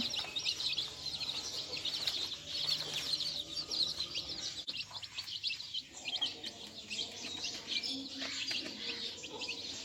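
Small birds chirping continuously in quick, high notes, with desi hens clucking softly now and then.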